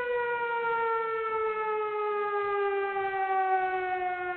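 A single siren-like tone, steady in loudness, slowly gliding down in pitch.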